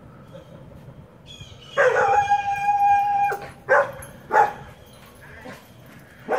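Sheepadoodle dog giving one long howl about two seconds in, then two short barks, and another short bark near the end.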